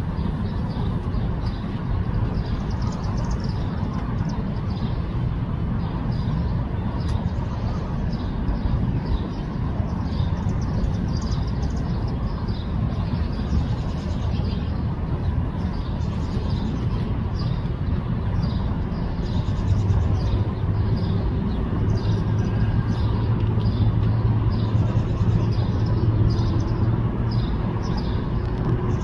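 Steady low engine rumble outdoors, with a low hum swelling about two-thirds of the way through and short high chirps recurring over it.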